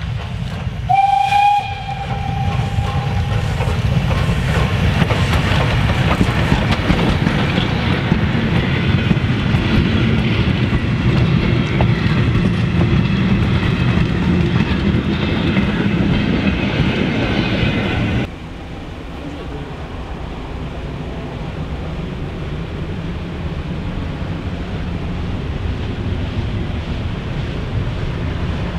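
OKz32-2 steam locomotive giving a short whistle blast about a second in, the loudest sound here, then the engine and its train of old coaches and wagons running close past with wheels clattering over the rail joints. After a sudden cut about two-thirds of the way through comes a quieter, steady rumble of the train running further off.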